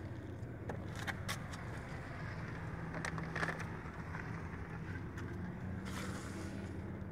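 Steady low engine hum, with scattered knocks, clicks and leaf rustles as potted plants are set onto a car's back seat.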